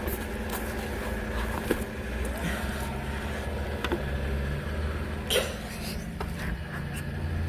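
A vehicle engine running with a low steady rumble, with a few light clicks over it.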